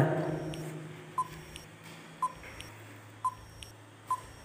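Quiz countdown-timer sound effect: four short, high beeps about a second apart, with fainter ticks between them.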